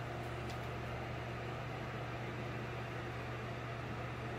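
Saltwater aquarium equipment running: a steady low electrical hum with an even hiss over it.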